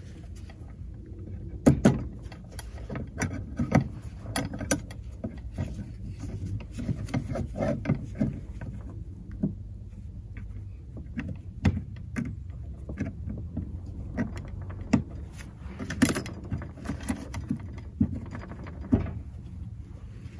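Steel double-spring body-grip trap and its chain being handled and fitted onto a guide stake: irregular metallic clicks, clinks and knocks, sharpest about two seconds in and again near sixteen seconds.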